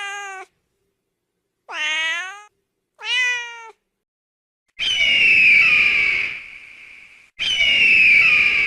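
A cat meowing, two short meows a second apart, then two long rooster crows, each about two and a half seconds.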